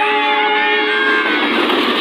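Train horn sounding one steady note for about a second over children shouting and cheering, then the noise of the passing train takes over.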